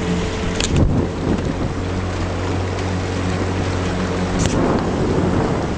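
1974 Johnson 6 hp two-cylinder two-stroke outboard motor running steadily under way, pushing a small boat. Two short sharp knocks stand out, about a second in and near the end.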